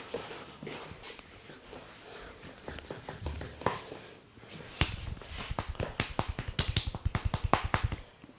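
Hands tapping and slapping on a person's head in an Indian head massage. Soft scattered taps and rubbing give way, about five seconds in, to a fast even run of sharp hand slaps, about eight a second, which stops shortly before the end.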